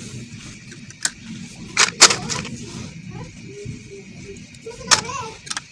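A few short sharp clicks and knocks, spread out over a steady background hiss. Faint wavering pitched sounds come in near the end.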